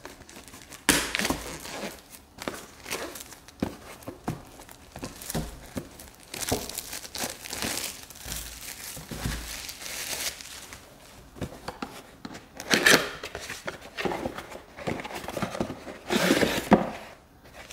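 Packaging being handled during an unboxing: a clear plastic wrap crinkling and a cardboard retail box rustling and clicking, in irregular bursts of handling noise.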